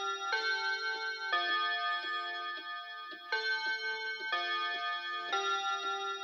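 Quartz mantel clock playing its chime tune, one sustained note about every second, with one note held for two seconds in the middle. The clock's tick sounds faintly under the chime.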